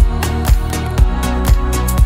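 Background music with a steady electronic dance beat, about two beats a second.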